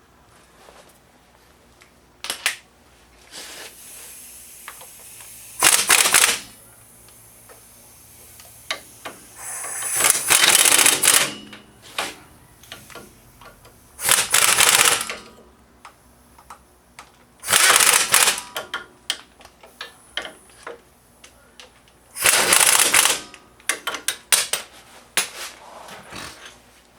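Impact wrench rattling in about five short bursts a few seconds apart, with tool clicks and clatter between them.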